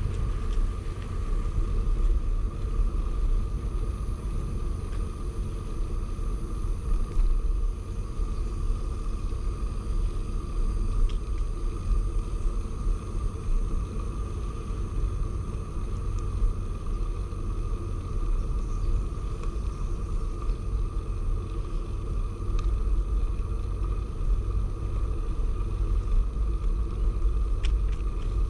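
Wind rumbling over the microphone of a camera riding along on a moving bicycle, a steady low rumble with a faint steady tone above it.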